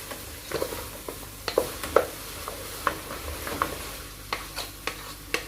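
Okra frying in hot groundnut oil with pepper and onions, sizzling steadily while it is stirred, the stirring utensil knocking and scraping against the pot in irregular clicks.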